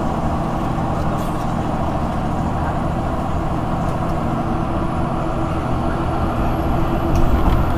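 Cummins ISL 8.9 straight-six diesel of a Thomas Saf-T-Liner HDX school bus running under way, heard inside the passenger cabin as a steady drone mixed with road noise. It grows a little louder near the end.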